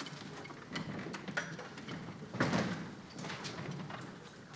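Footsteps of a group of students crossing a stage, with scattered knocks and scrapes from chairs, music stands and instruments as a school band takes its seats; one louder clunk about two and a half seconds in.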